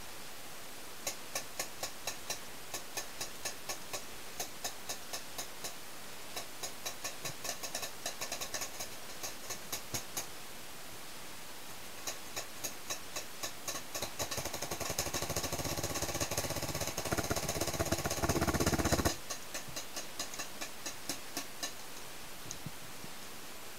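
Paintball markers firing in rapid strings of sharp pops, several a second. A louder, denser run of fire builds from about fourteen seconds in and stops suddenly near nineteen seconds, leaving scattered pops.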